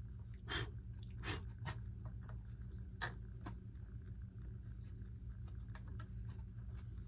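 Scattered small clicks and taps from handling small plastic model parts, over a steady low hum.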